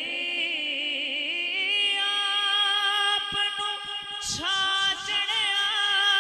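A man singing a Punjabi naat unaccompanied through a microphone, drawing out a long wordless note with a wavering, ornamented pitch. About four seconds in he slides up to a higher note and holds it steady.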